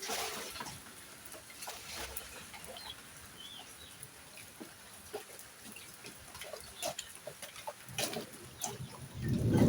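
Rain dripping and pattering in scattered ticks, with farmyard fowl calling now and then, and a louder, lower sound building near the end.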